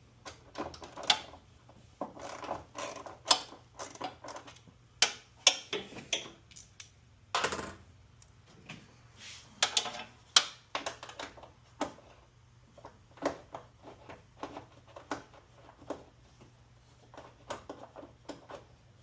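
Hand tools working a bolt on the front end of a 1996 Ford F-150: irregular sharp clicks and knocks of metal tools against metal and plastic parts as the bolt is tightened, some in quick little runs.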